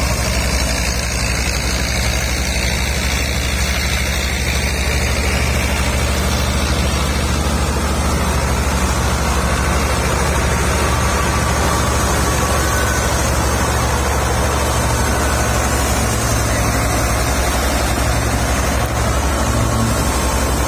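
Tractor-driven wheat thresher running under load as wheat sheaves are fed in: the tractor's diesel engine and the threshing drum make a steady, loud drone with a constant rushing whir.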